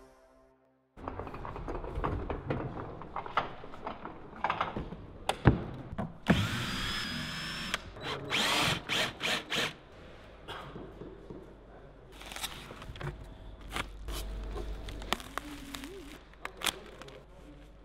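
DeWalt 14.4 V cordless drill working the screws of a wooden shipping crate: one longer run about six seconds in, then four short bursts, among knocks and clatter of wood being handled. In the later part there are quieter scattered clicks and handling noises as bubble wrap is cut open.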